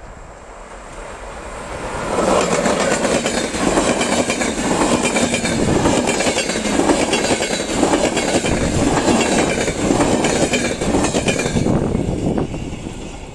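Locomotive-hauled passenger train passing close by. The sound builds over the first two seconds, stays loud with a rapid clatter of wheels on the rails while the coaches go by, and dies away near the end.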